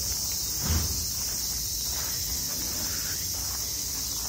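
Cicadas in the surrounding trees keep up a steady, high-pitched drone, with one low thump about a second in.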